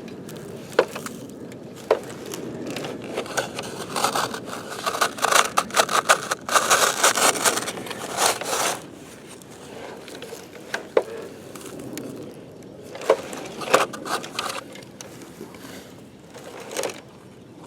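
Toy digger bucket scraping and scooping through dirt: a couple of sharp clicks, then several seconds of dense scraping and crunching, then scattered knocks.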